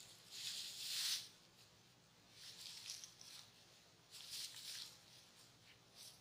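Dry straw bedding rustling and crackling in three short bursts as a puppy and a calf tussle and shift on it; the loudest burst comes about a second in.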